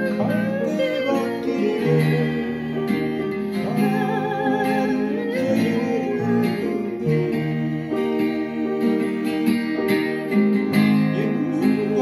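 Music: acoustic guitar and a sung melody with vibrato, with upright piano accompaniment.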